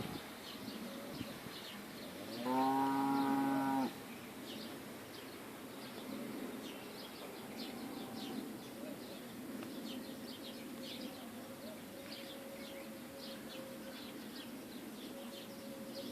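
Birds chirping in quick, high, repeated calls, with one long, low, steady animal call, the loudest sound, lasting about a second and a half from about two seconds in. A faint steady tone comes in past the middle.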